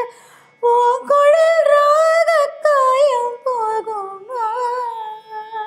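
A woman singing a slow Tamil film song unaccompanied. After a brief breath at the start she holds long notes, decorated with quick Carnatic-style turns in pitch.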